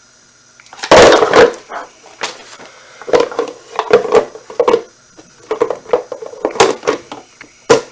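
Plastic parts of a pet water fountain being handled and fitted together: a loud clatter about a second in, then a run of knocks and clicks.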